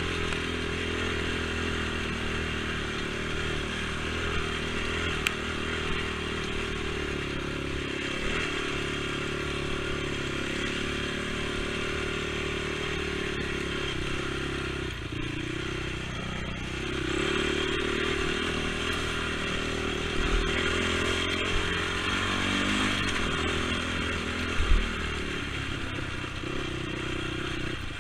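Honda TRX450 ATV's single-cylinder four-stroke engine running continuously as it rides, its pitch rising and falling with the throttle. A few knocks and clatters come from the machine over the trail, the sharpest about three-quarters of the way through.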